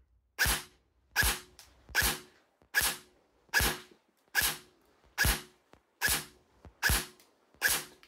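Delta Armory Bravo ETU Silent Ops M4 airsoft electric gun firing ten single shots of 0.20 g BBs through a chronograph, about one shot every 0.8 seconds. Each shot is a short, sharp crack that dies away quickly.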